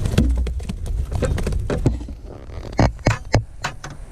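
Wind rumbling on the microphone, with a run of short knocks and crunches that come quickest about three seconds in.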